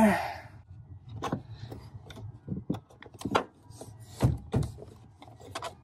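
A hard plastic interior trim panel is handled and pressed into place in a 2008 Toyota Tacoma's footwell. It scrapes and rubs, with a scattering of sharp clicks and knocks; the loudest come between about three and four and a half seconds in.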